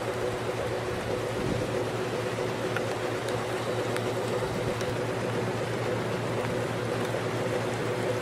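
Steady low mechanical hum over an even hiss, with a few faint ticks.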